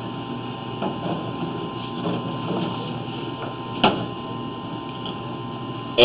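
Steady electrical hum from a sewer inspection camera system, with a few faint clicks and one sharper tick about four seconds in.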